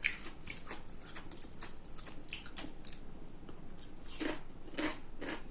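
Close-up chewing of crunchy food, a run of short crisp crackles and clicks from the mouth, thinning out in the middle with a few louder crunches about four and five seconds in.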